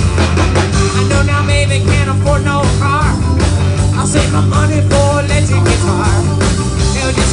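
Live rock band playing through a PA: electric guitars, keyboard and drums in an instrumental stretch, with a lead line of bending, wavering notes over a steady low end.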